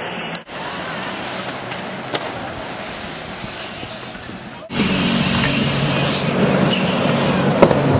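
Steady rushing, hissing noise of a ski-aerials splash pool's air bubbler churning the water. It drops out briefly about half a second in, and from about four and a half seconds in it grows louder with a steady low hum underneath.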